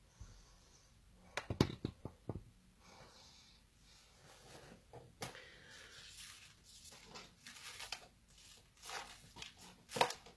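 Close handling noises: a cluster of knocks and clicks about a second and a half in, then irregular rustling and scraping, with another knock near the end.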